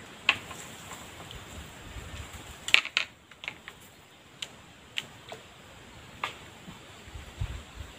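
Irregular sharp clicks and knocks, about a dozen, the loudest a little under a second in and around three seconds in, over a faint steady outdoor background.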